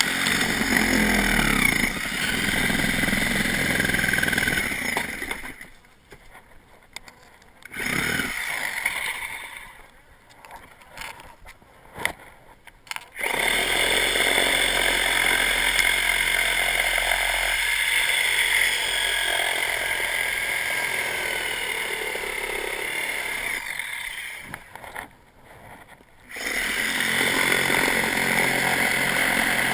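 Reciprocating saw cutting into the wooden trim of a brick archway, running in bursts: about five seconds, a stop, a short burst and a few quick stutters, then a long run of about ten seconds, a brief pause, and another run near the end.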